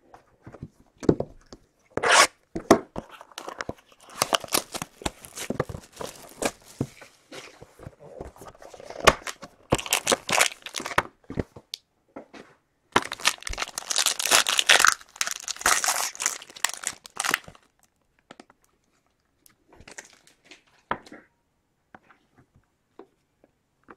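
Foil wrapper of a trading-card pack being torn open and crinkled, in irregular crackling bursts that thin out to a few light clicks over the last several seconds.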